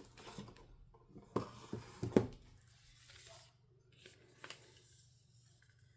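Paper and card album inclusions being handled and set aside: light rustles and taps, with a small cluster about two seconds in and one more later.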